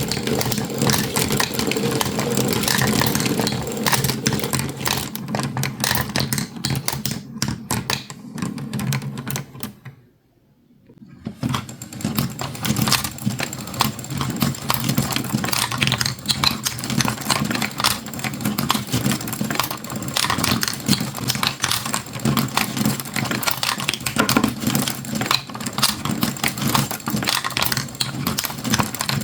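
Marbles rattling and clicking along a toy marble run in a dense, continuous clatter, with a steady low hum underneath. About ten seconds in the sound drops away for a moment, then the clatter picks up again.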